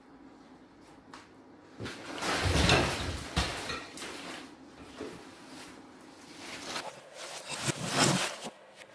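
Plastic plant pots being shifted and lifted, with scraping, knocks and leaf rustle. It comes in two bouts, one about two seconds in and a shorter one near the end.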